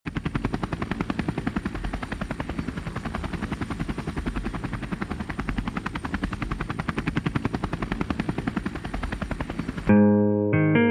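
Helicopter rotor blades chopping fast and evenly. Just before the ten-second mark the chop cuts off and a band comes in with loud, ringing guitar chords.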